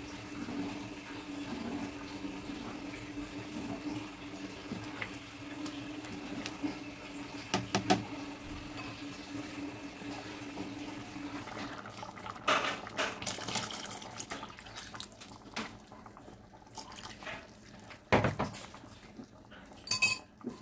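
Thick rice porridge (arroz caldo) bubbling in a pot on the stove, with scattered plops and pops that come louder and more often in the second half. A steady low hum runs under the first half and stops about halfway.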